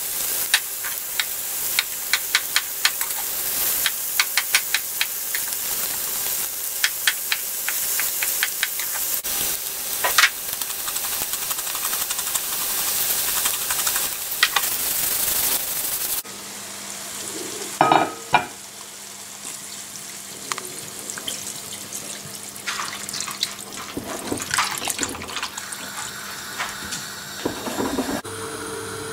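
Fennel pieces sizzling as they fry in a pan, with a steady hiss and many crackles and pops. About halfway through the sound drops suddenly to a quieter scene with a steady low hum and a couple of knocks.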